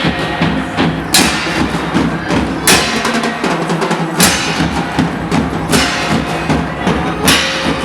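Loud dance music with a steady drum beat, a bright accent like a cymbal crash landing about every second and a half.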